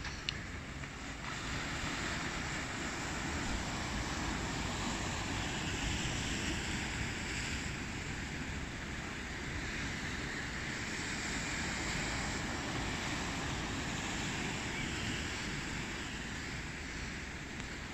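Steady rushing noise of wind and sea, swelling and easing slowly, with a brief knock near the start.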